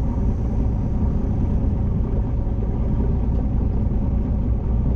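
Steady low rumble of a fishing boat underway, its motor running with no distinct changes.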